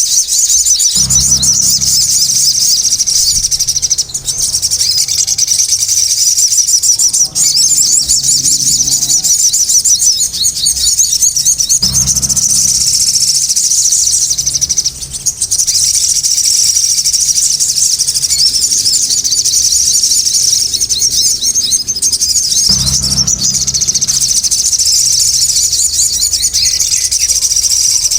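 Sogon birds singing and calling nonstop, a dense run of rapid high-pitched chirps and twitters, with a low rumble coming and going a few times.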